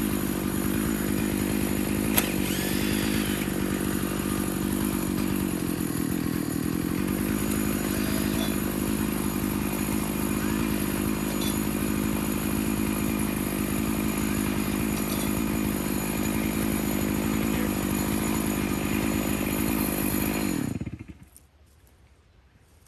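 Stihl MS461 two-stroke chainsaw on an Alaskan mill, running steadily at high revs as it rips a cedar log, with its pitch sagging briefly about six seconds in. About twenty seconds in it is switched off and dies away quickly.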